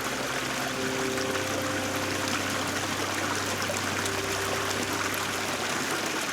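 Running water with a steady, even rushing hiss, with faint held music notes underneath.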